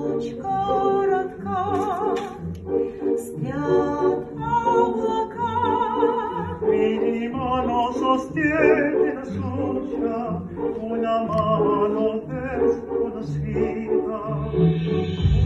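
Singing with strong vibrato over a backing accompaniment, a slow waltz song in an operatic style.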